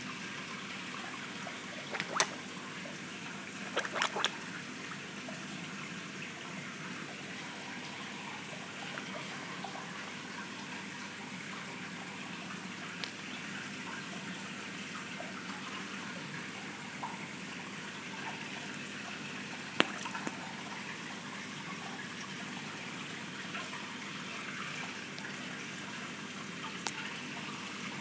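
Steady trickle of water running in a fish holding tank, with a few short sharp clicks, the loudest about two seconds in, around four seconds in and near twenty seconds.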